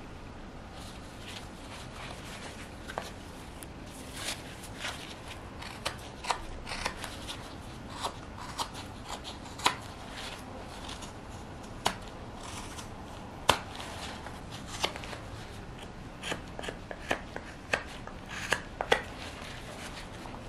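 Carving knife slicing chips off the outside of a birch wood cup (kuksa): a run of irregular, sharp cutting snicks, few at first and coming more often towards the end.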